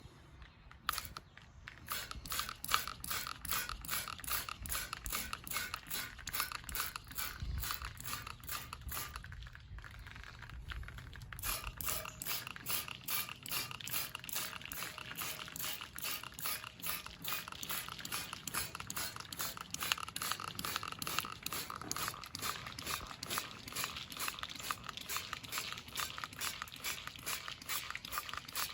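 Steady hand scrubbing on a chrome bumper, rapid back-and-forth strokes at about four a second.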